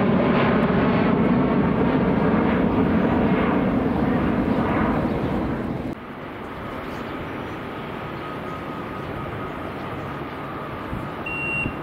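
Jet airliner engine noise, loud for about the first six seconds, then dropping abruptly to a quieter steady rumble. Evenly repeating high beeps from a vehicle reversing start near the end.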